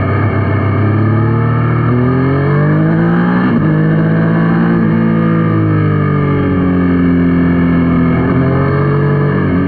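Yamaha Niken's three-cylinder engine running on the road, its revs climbing and falling several times as the bike accelerates, changes gear and slows.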